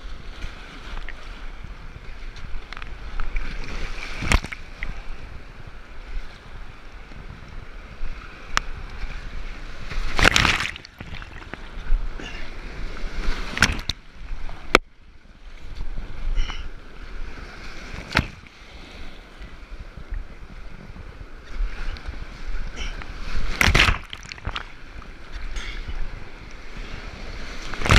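Whitewater rushing around a kayak as it runs the rapids, with paddle strokes and waves splashing hard against the boat several times, the biggest splashes about ten seconds in and near the end.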